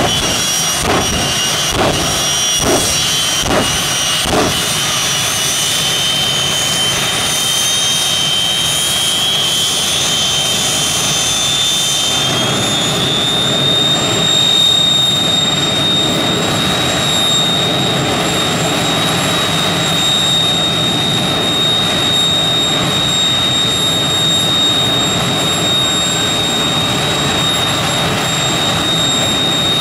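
Jet engines running with a steady high whine that rises in pitch about twelve seconds in as they spool up. In the first few seconds there are about six sharp pops over the engine noise.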